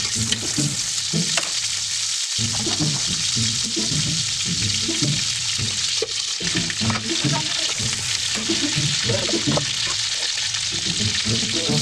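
Steady, loud hissing noise with irregular lower tones under it, possibly background music.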